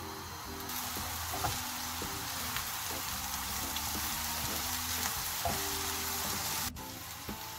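Diced sausage and chopped mushrooms sizzling in a frying pan as they are stirred with a spatula, with a few scrapes and taps of the spatula. The sizzle starts about a second in and cuts off suddenly near the end, over soft background music.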